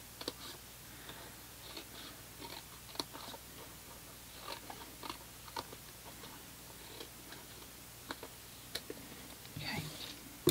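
Small scissors snipping through cardstock in short, irregular cuts, trimming away bulk from the tabs of a box template, with the card rustling as it is handled near the end.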